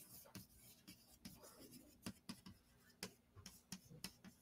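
Chalk tapping and scratching on a blackboard as words are written: a faint run of short, irregular taps.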